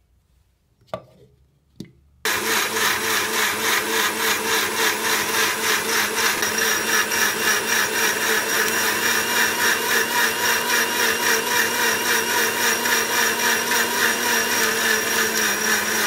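Two light clicks, then an electric mixer grinder starts about two seconds in and runs steadily, its motor spinning the jar's blades through mango pieces, mint leaves, sugar and water to make juice.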